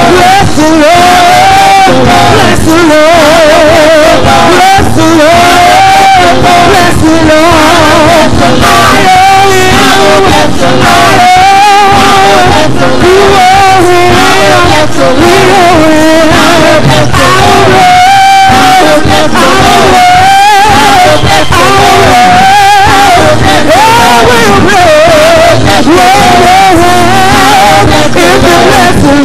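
Gospel praise team singing into microphones over live band accompaniment, the voices wavering with heavy vibrato. Loud throughout.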